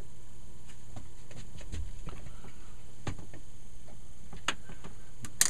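Ampex 601 tape transport running, with a steady motor hum and scattered light ticks from the drive mechanism, and a sharper click near the end.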